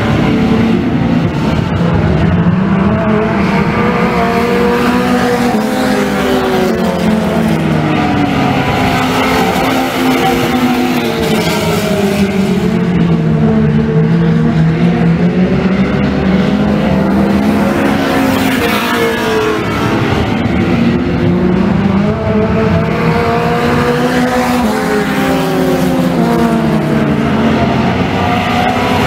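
Dirt-track stock cars racing around the oval, their engines rising in pitch down the straights and falling as they slow for the turns, again and again.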